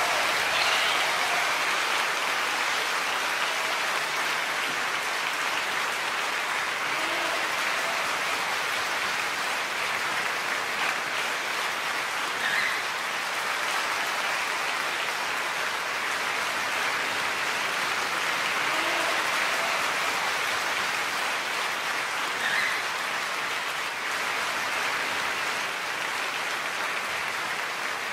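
Audience applause, steady and continuous, with a few faint short chirps over it.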